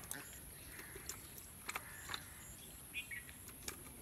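Scattered light clicks and taps from hands working a caught fish and hook line over a plastic bucket. There is a short bird chirp about three seconds in, over a faint steady background.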